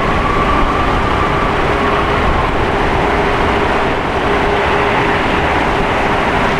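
Boeing 747-8F's four GEnx turbofan engines at high takeoff thrust: a loud, steady roar with a faint whine held through it.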